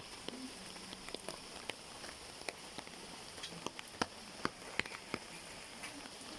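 Light rain: scattered raindrops tapping irregularly, a few a second, over a steady soft hiss.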